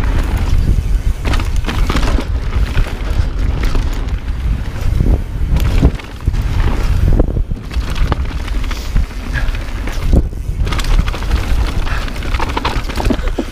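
Mountain bike descending a rough trail at speed: wind rushing over the microphone, with the rattle and crunch of tyres and frame over rocks and dirt.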